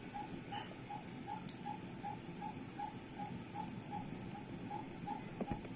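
Faint, even ticking: short pips at one pitch, about three a second, with a single sharp click near the end.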